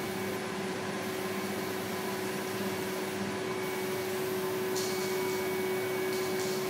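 A machine running steadily: an even hum with a constant whine. Two brief soft hisses come in the second half.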